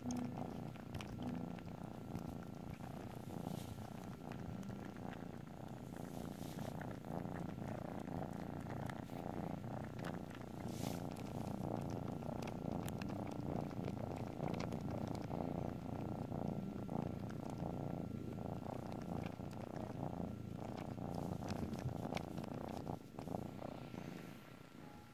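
Kitten purring steadily at close range while kneading and mouthing a fleece blanket, with many small clicks and scratches from its claws and mouth; the purr fades near the end.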